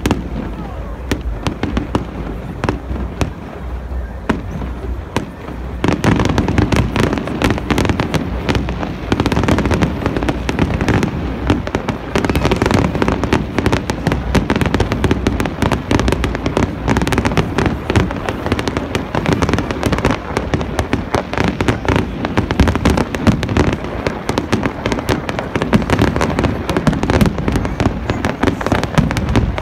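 Fireworks display: shell bursts and crackling, sparser and quieter for the first few seconds, then from about six seconds in a dense, continuous barrage of bangs and crackle.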